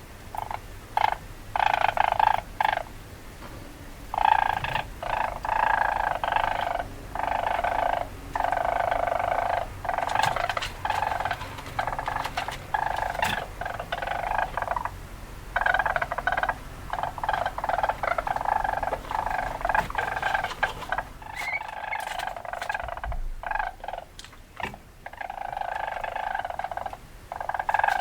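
Weasel calls: rapid chattering runs repeated in bursts of one to several seconds, with short pauses between.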